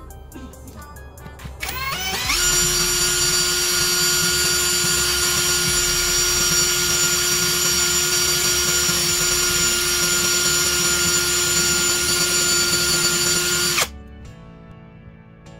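Brushless cordless drill spinning up with a rising whine about two seconds in, then running at a steady high speed for about eleven seconds before stopping suddenly.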